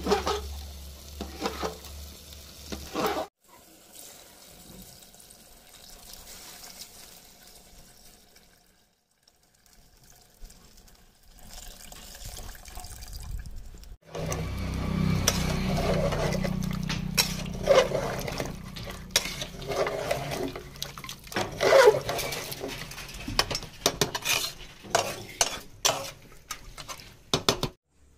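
Water gushing from a hand pump's spout into an aluminium pot, cut off about three seconds in. Later a steel ladle stirs and scrapes thick mutton curry in an aluminium pressure cooker, with many sharp clinks against the metal over a steady low hum.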